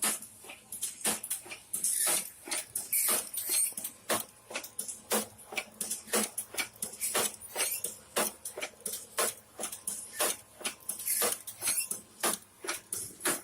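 Automatic salt sachet packing machine running, making a rapid, uneven clatter of clicks and ticks with short hissing bursts, several a second.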